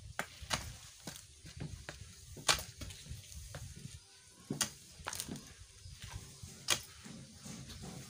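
Short-handled shovel digging into packed soil and stones in a pit dug by hand: irregular sharp knocks and scrapes, a few seconds apart.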